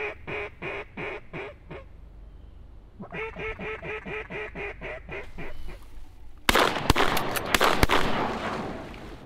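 Duck calling: two runs of quick, evenly spaced quacks, each note dropping slightly in pitch. About six and a half seconds in, a quick volley of several loud shotgun shots rings out and fades.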